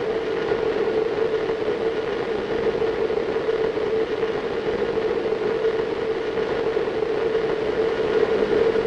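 A steady, unchanging drone: a low-middle hum over a rushing wash of noise.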